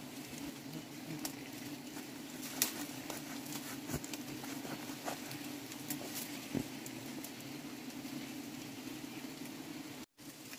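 A swarm of giant bees buzzing around their open comb, a steady low hum. Scattered sharp clicks and snaps come as a knife cuts the comb from the branch. The sound cuts out briefly near the end.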